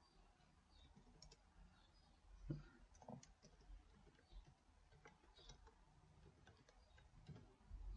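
Faint computer keyboard keystrokes, scattered and irregular clicks, over near silence.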